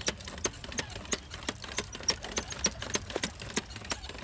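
Hand-pushed rotary maize planter with a red seed drum (Samson seed drill) clicking at about three or four clicks a second as it rolls over tilled soil.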